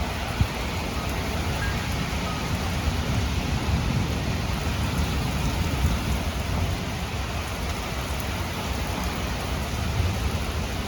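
Heavy thunderstorm rain pouring steadily, with gusting wind and a low rumble underneath.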